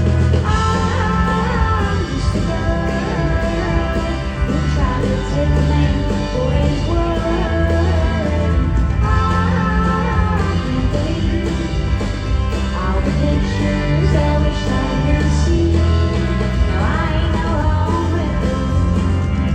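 Live country-rock band playing a song, with a woman singing the lead over guitars and a steady drum beat.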